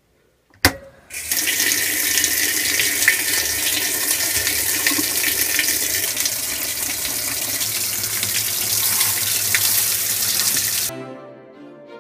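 A sharp click as the top-loading washing machine's control dial is set, then water gushing from the fill inlet into the washer tub in a loud, steady rush. The rush cuts off suddenly about eleven seconds in, and music starts.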